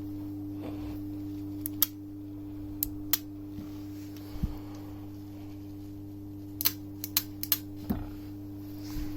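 Arboga Maskiner pillar drill's electric motor running with a steady hum, with a scatter of sharp clicks and taps over it, most of them bunched together late on.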